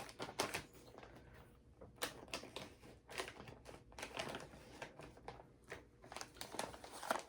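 Plastic candy bag of cotton candy crinkling and rustling in irregular little crackles and clicks as it is handled and opened.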